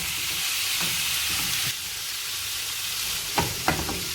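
Prawns in spice masala sizzling in a pan over a low flame while a spoon stirs them. The sizzle eases slightly partway through, and the spoon scrapes twice sharply against the pan near the end.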